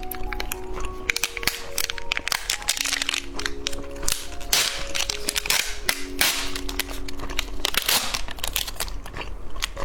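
Dense, irregular sharp crackling and snapping from candy snacks being handled and eaten, over background music with a simple held-note melody.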